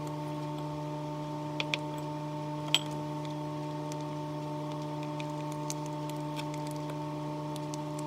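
Light clicks and taps of fingers folding a sheet of rice paper around a rice filling on a wooden cutting board, with one sharper tap about three seconds in. Under them runs a steady hum of several fixed tones from a running appliance.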